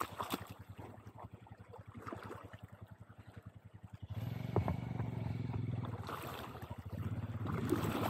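Motorcycle engine pulling through a shallow river crossing: a low, even putter for the first few seconds, then running louder as the rider opens the throttle about four seconds in, with water splashing around the rider's boots.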